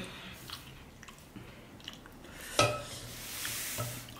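Quiet mealtime sounds: chewing and small clicks of a spoon on a plate, with one sharper knock about two and a half seconds in.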